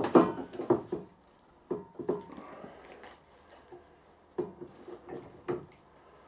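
Scattered light knocks and clicks of metal parts being handled at a hydraulic bench press, just after a bush has been pressed home into a cast chuck back plate.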